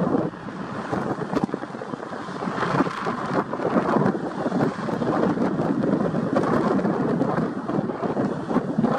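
Roar of the McDonnell Douglas MD-11F's three Pratt & Whitney PW4460 turbofan engines as the jet rolls out after touchdown, heard at a distance, with gusty wind buffeting the microphone throughout.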